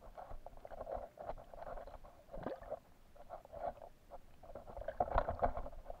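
Muffled underwater water sounds picked up by a submerged camera near a hooked carp: irregular gurgling and small clicks, with a few low knocks about halfway through and again near the end.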